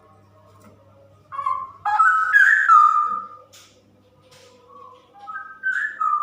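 Female straw-headed bulbul singing: two bursts of loud, gliding whistled phrases, the first starting about a second in and lasting about two seconds, the second coming near the end.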